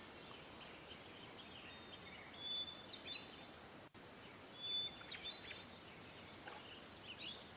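Faint birdsong: scattered short, high chirps and whistles, some sliding up or down in pitch, over a quiet outdoor background.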